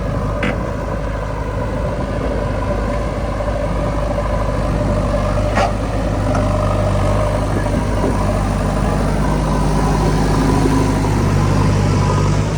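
Heavy-machinery diesel engine running steadily, a little stronger in the second half, with two brief high squeaks, about half a second and about five and a half seconds in.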